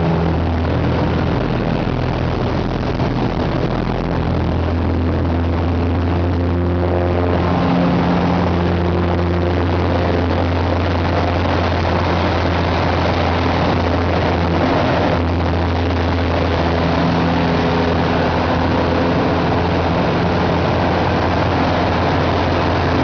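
Cockpit sound of an 8KCAB Super Decathlon's Lycoming four-cylinder engine and propeller running steadily under power, with the engine note shifting slightly a couple of times during aerobatic maneuvering.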